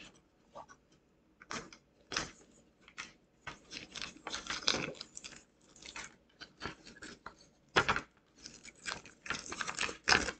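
Clear plastic shrink-wrap being torn open by its tear strip and peeled off a wooden picture-frame board: irregular crinkling and crackling of the film, with one sharp crackle near the end.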